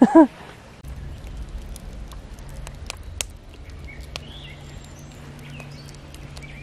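Campfire crackling: scattered sharp ticks and pops over a steady low hum.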